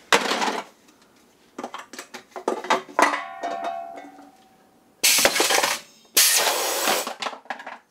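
Pneumatic can crusher being worked: a metal can clinks and rings as it is handled, then two loud bursts of air hiss about a second apart as the air cylinder is fired to crush the can and then releases.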